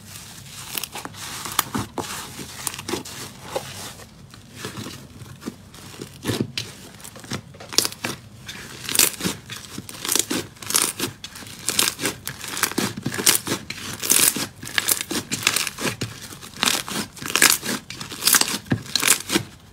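Hands squeezing and kneading foamy rainbow slime, giving an irregular run of short, sharp wet crackles and pops as trapped air bursts. The crackles come thicker and louder in the second half.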